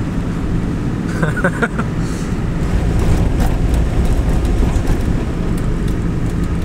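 Land Rover driving, heard from inside the cabin: a steady low engine and road rumble.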